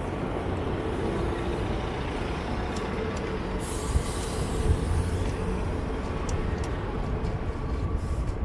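Steady wind and road rumble on a moving fixed-gear bicycle's camera microphone, over city traffic with a bus alongside. A brief hiss comes about three and a half seconds in.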